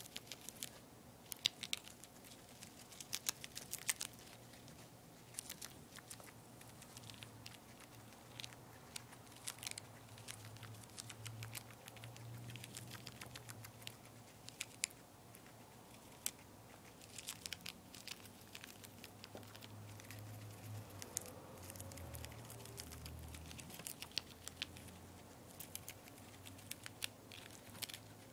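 Two-month-old guinea pig chewing a lettuce leaf: quick, crisp crunching bites in irregular runs with short pauses between them.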